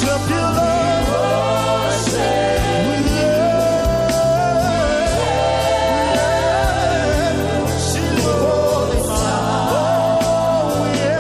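Gospel worship song: a lead voice singing long held, wavering notes over steady band accompaniment.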